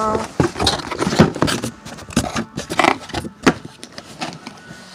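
Irregular clatter of keyboard keys being pressed, mixed with knocks and rustling from the phone being handled and swung around; it quietens about three and a half seconds in.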